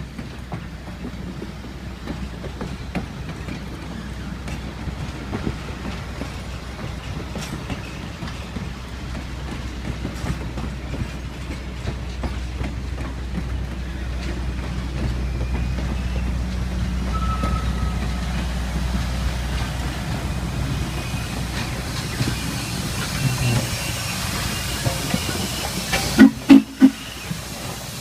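Passenger train cars rolling past on the rails with a steady low rumble of wheels that swells as they go by. Near the end, as the Norfolk & Western 611 steam locomotive comes alongside, three loud knocks come in quick succession.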